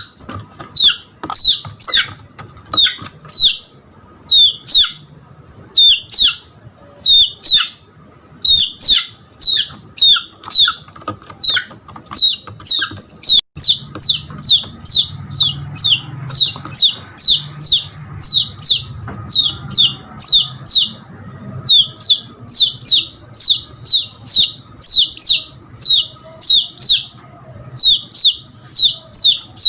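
Red junglefowl chick giving shrill distress peeps in quick runs of several notes with short breaks: the call of a lost chick calling for its mother.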